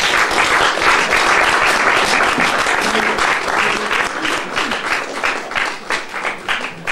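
Audience applauding after a speech, the applause thinning into scattered claps near the end.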